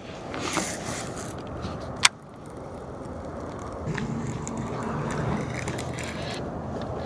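Handling noise aboard a fishing kayak: rubbing and scraping of gear, with one sharp click about two seconds in. A faint low hum comes in from about four seconds in.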